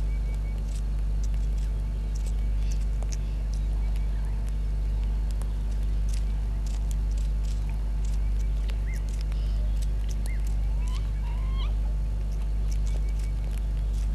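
A steady low hum that swells and fades about once a second. Faint bird calls sound over it: scattered high ticks, short chirps, and a few curving calls near the end.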